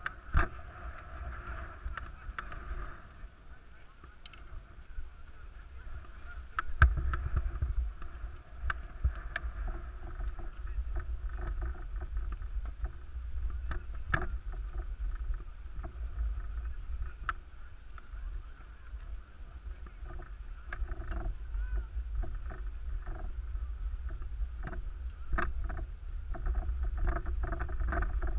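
Wind rumbling on a moving action camera's microphone during a ski descent, with skis sliding and scraping over packed snow and scattered small clicks. The rumble grows louder about a quarter of the way in.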